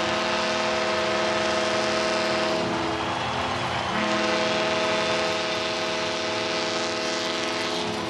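Stadium home-run horn sounding two long blasts of a multi-note chord, the second starting about four seconds in, over crowd cheering, celebrating a home-team home run.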